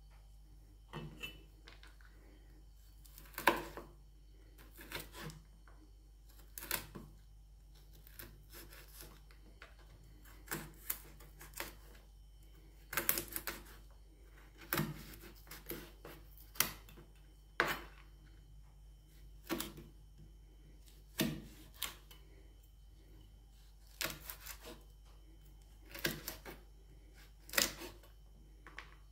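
Cleaver chopping dried animal bile into tiny pieces on a cutting board: irregular sharp knocks of the blade on the board, about one every second or two.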